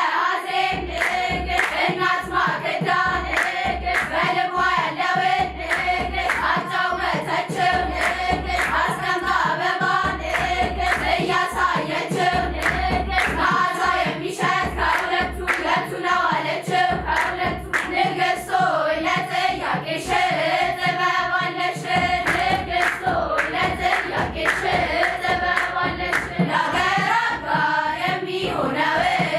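A choir of girls singing an Ethiopian Orthodox hymn (mezmur) together, with steady rhythmic hand clapping.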